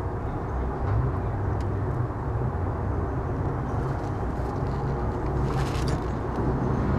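Steady low hum with a hand transfer pump being worked, pushing 75W-140 gear oil into a BMW M3 rear differential through the filler hole.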